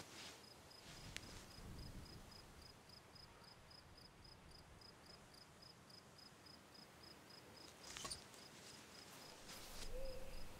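Faint night ambience of a cricket chirping steadily, about three high chirps a second, with a few soft rustles and clicks. A low rumble swells in near the end.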